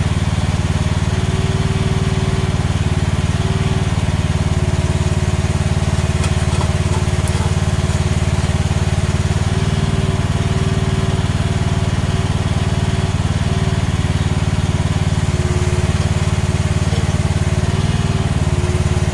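AGT H13R mini excavator's engine running at a steady speed.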